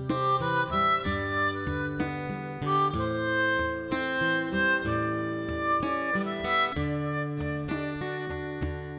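Background music: a melody of held, reedy notes over plucked strings, moving from note to note every half second or so.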